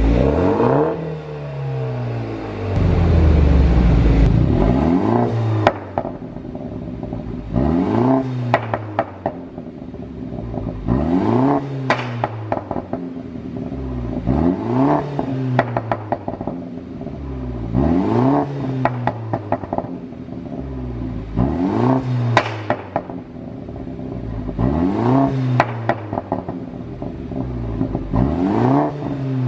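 BMW G30 530i's turbocharged four-cylinder engine revved again and again, about every three and a half seconds, each rev climbing and falling away with a run of sharp exhaust pops and crackles: the sound of a pop-and-crackle ECU tune.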